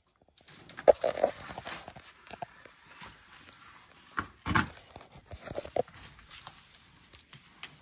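Irregular knocks, scrapes and rustling from movement among the wood and branches of a water monitor's enclosure, with the sharpest knocks about a second in and again past the middle.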